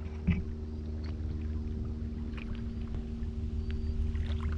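Boat motor running steadily at low revs, an even low hum, with a few faint light taps.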